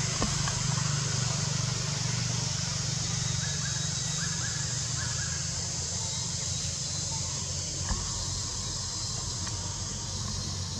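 Forest ambience: a steady high insect drone over a steady low hum, with three short chirps around the middle and a single knock near the end.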